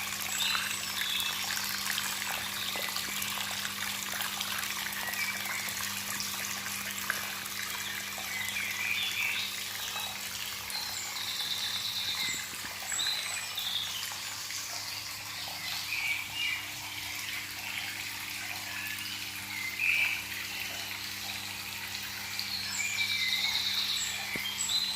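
Running water trickling steadily, with short high chirping animal calls breaking in every few seconds and a faint steady low hum underneath.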